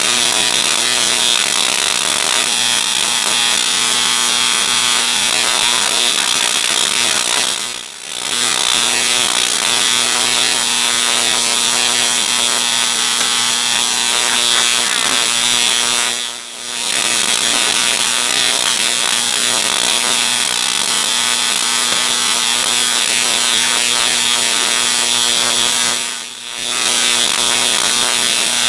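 Tesla coil running, its arcs making a loud, steady buzzing crackle. It cuts out briefly three times: about eight seconds in, about sixteen seconds in, and near the end.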